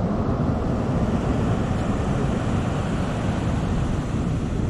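Ocean surf washing onto a beach, heard as a steady rush, with wind rumbling on the microphone.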